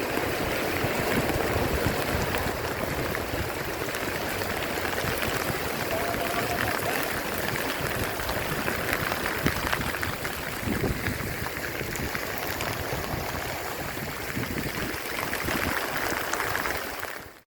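Heavy rain pouring down steadily, a dense even hiss of water, which cuts off abruptly near the end.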